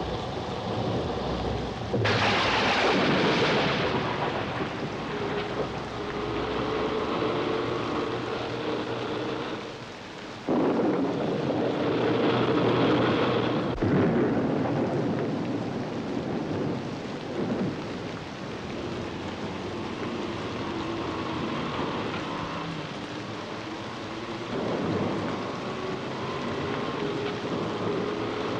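Heavy rain with thunder: loud thunderclaps break in about two seconds in and again about ten seconds in, and a sharp crack follows a few seconds later.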